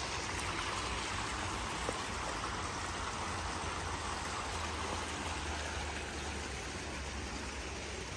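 Steady rush and splash of water from a small fountain playing into a pond.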